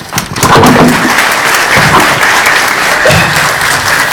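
Audience applauding steadily with loud clapping, and a few voices calling out among it.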